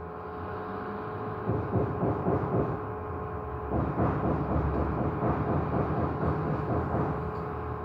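A steady hum with two held tones, under uneven low rumbling that starts about a second and a half in.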